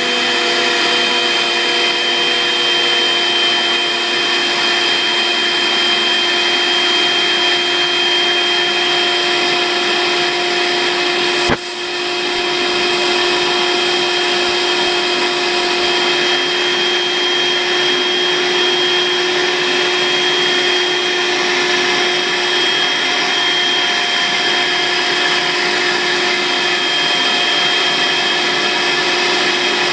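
Makita 18V cordless stick vacuum running steadily with a high motor whine, drawing the air out of a futon compression bag. A sharp click and a momentary drop in level come about a third of the way in.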